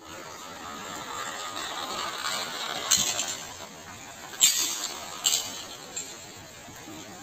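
Small toy car clattering down off a wet concrete ledge: three sharp clinks spread over a couple of seconds near the middle, over a steady hiss.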